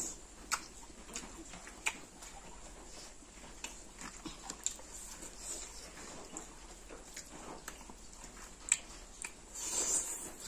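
Close-up eating sounds: chewing and lip smacks, with fingers squishing and mixing rice and curry on a banana leaf, heard as scattered soft clicks and smacks.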